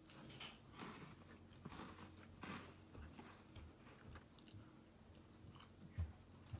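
Faint, irregular crunching of a Super Big Choco bar being chewed, a chocolate bar with crisp cereal puffs inside.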